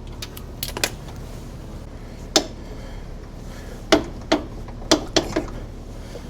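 Scattered metal clicks and clanks, irregularly spaced, from hand tools and suspension hardware as an A-arm bolt is worked loose and drawn out. A steady low hum runs underneath.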